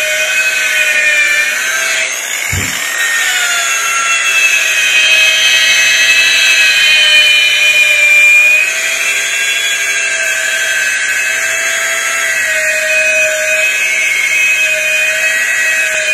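Large electric rotary buffer running steadily, its motor whining with a pitch that dips and rises slightly as the pad works medium-cut compound over a wooden rifle stock. This is the cutting stage, taking out sanding scratches before polishing. A short thump about two and a half seconds in.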